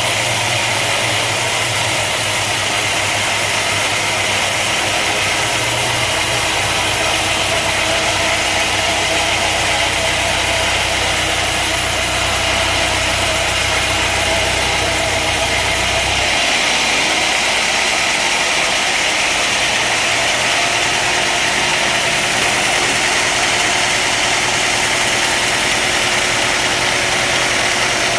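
Woodworking machinery running steadily: a loud, even hiss with a low motor hum beneath it, and the hum drops and shifts about sixteen seconds in.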